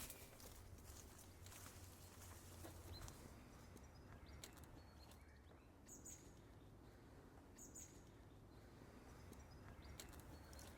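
Near silence: faint outdoor ambience with a low hum, a few soft scattered ticks, and two brief faint high chirps about six and eight seconds in.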